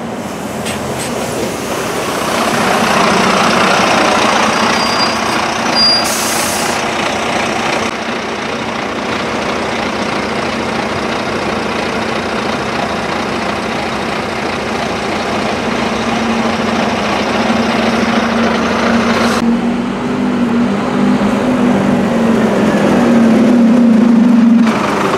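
Diesel double-decker bus engines running close by as buses pass and pull up at a stop, with a short hiss about six seconds in. An engine hum grows louder over the second half and cuts off abruptly just before the end.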